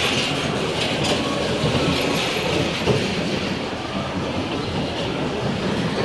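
Electric bumper cars running across the arena floor, a steady rolling rumble with a sharp clack about three seconds in.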